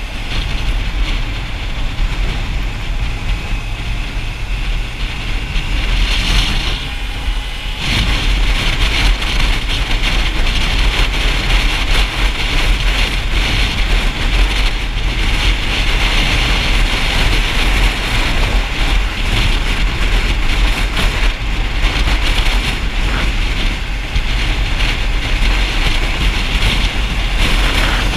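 Motorcycle on the move: a steady engine rumble under a rushing haze of wind and road noise, which grows louder about eight seconds in.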